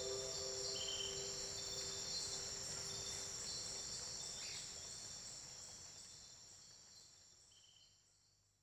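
The tail of a Japanese pop song's recording fading out: sustained notes die away in the first few seconds, leaving a high, steady shimmer that fades to silence near the end.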